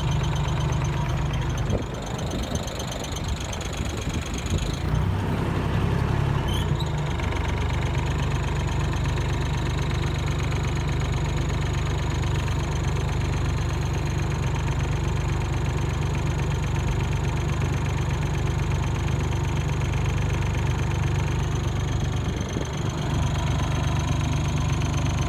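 Vehicle engine running steadily, a low drone.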